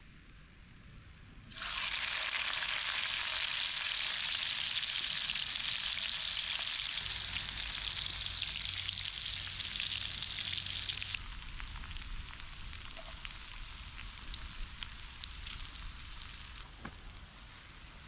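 Food sizzling and frying in a hot pan over a campfire. The sizzle starts suddenly about a second and a half in, stays loud until roughly two thirds of the way through, then carries on more quietly with scattered crackles.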